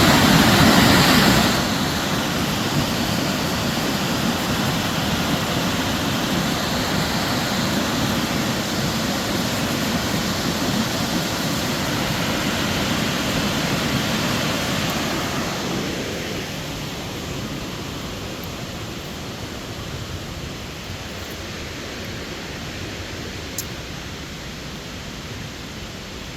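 Steady rushing roar of the 130-foot Burgess Falls on the Falling Water River, water plunging into the gorge. It surges louder in the first second or two and grows quieter about 16 seconds in.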